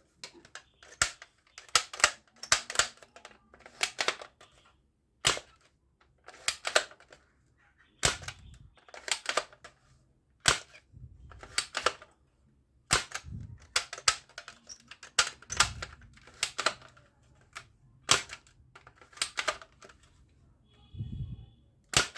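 Sharp clicks and snaps of plastic toys being handled, coming irregularly and sometimes in quick runs, with a short beep about 21 seconds in.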